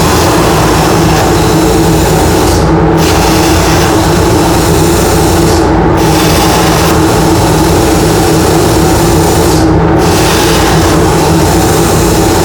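CNC plasma cutter's arc hissing steadily as the torch cuts sheet metal, over the steady hum of a dust collector and fume extractor; the high hiss dips briefly four times.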